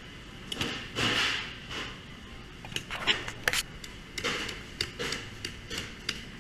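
Meat cleaver chopping at a whole pig's carcass on a stainless steel table. The chopping comes as a run of sharp knocks, the loudest about three seconds in, after a softer swell about a second in.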